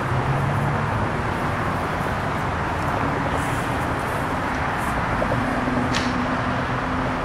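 Steady mechanical rumble of engines running at a rail yard, with a low hum that steps up in pitch about five seconds in, and a short sharp click near the end.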